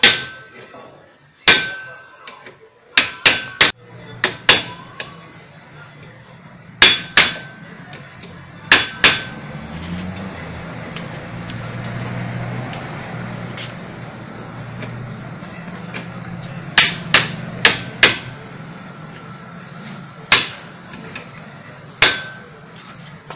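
Hammer blows on a heated metal part of an orange juicer motor, struck to loosen it. About sixteen sharp, ringing strikes come in irregular groups of two to four. A low steady hum runs underneath through the middle of the stretch.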